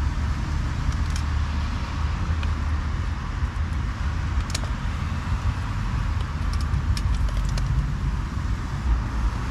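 Steady rumble of road traffic. A few light clicks from a metal utensil against the cooking pan on a spirit stove sound over it.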